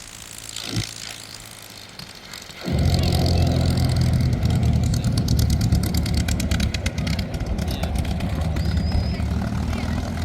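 P-51 Mustang's Merlin V12 engine running steadily and loudly, cutting in suddenly about three seconds in after a quieter opening.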